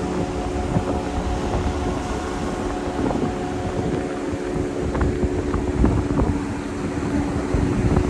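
Wind buffeting the microphone in gusts, over a steady mechanical hum.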